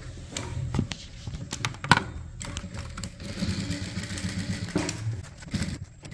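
Sewing machine stitching a seam through the blouse fabric and lining, running in stretches with scattered clicks.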